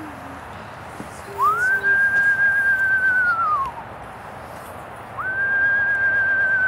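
A person whistling two long, clear notes as an owl call, each note sliding up, held steady, then falling away, the first starting about a second and a half in and the second near the end.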